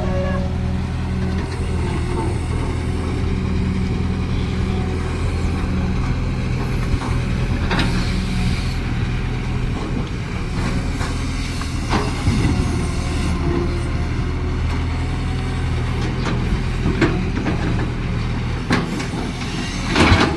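Caterpillar excavator's diesel engine running steadily while digging, with a few sharp knocks during the work, the loudest near the end.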